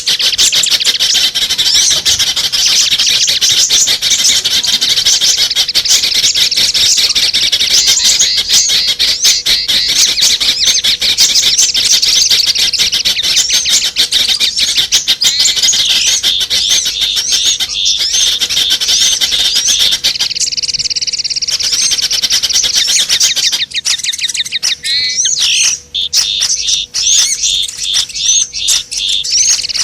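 A dense, unbroken chorus of small songbirds chittering and trilling over one another, from a bird-lure (pikat) recording made to draw small birds in. A faint steady hum sits underneath. Near the end the chorus thins into separate, rapidly repeated notes.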